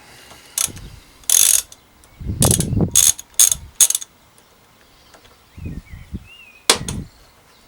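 Socket ratchet clicking in several short bursts as a 12 mm deep socket loosens the rusted top lock nut on a bicycle pedal axle.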